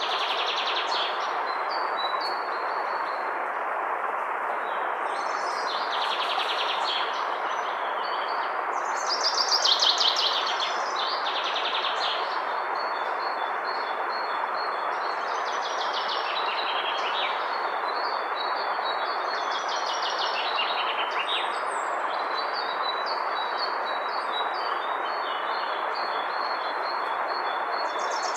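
Flowing river water rushing steadily, with songbirds singing repeated chirping and trilling phrases over it; the loudest burst of song comes about ten seconds in.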